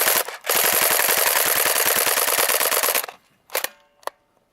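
Airsoft gun firing on full auto in rapid, evenly paced bursts: one stops just after the start, and a longer one of about two and a half seconds follows. Near the end come two short, sharp clicks.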